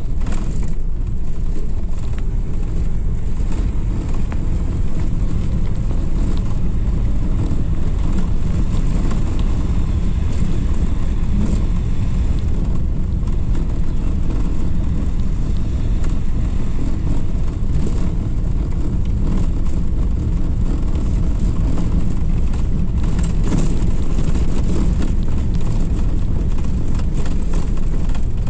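Old Toyota Carina being driven, heard from inside the cabin: the engine running with steady road and tyre noise.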